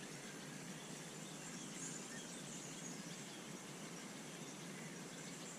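Quiet outdoor ambience: a faint, steady hiss with no distinct sounds.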